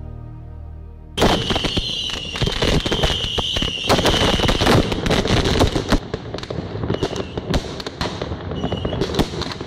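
Soft background music, cut off about a second in by fireworks going off close by: a sudden hissing, crackling spray with a steady high whistle for about three seconds, then dense pops and crackles to the end.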